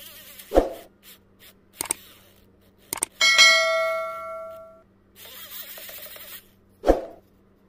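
Subscribe-button animation sound effect: a few sharp clicks, then a bell ding that rings for about a second and a half, a short whoosh, and a final click.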